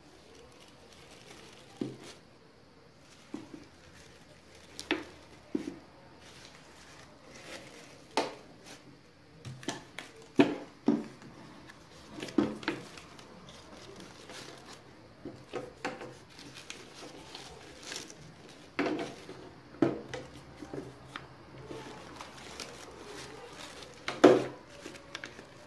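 Crepe paper rustling and crinkling, with a plastic bottle being handled, as paper flowers and leaves are pressed onto the bottle's taped neck: irregular small rustles and soft knocks, a few of them sharper.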